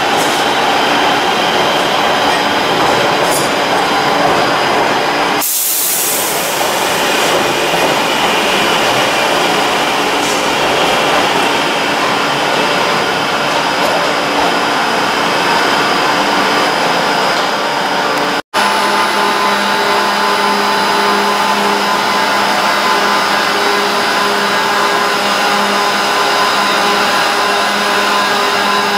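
Electric multiple-unit trains running through a station: a West Midlands Railway Class 323 moving along the platform, with a short hiss about five and a half seconds in. After a cut, a London Northwestern Railway Class 350 electric unit moves slowly alongside the platform with a steady hum.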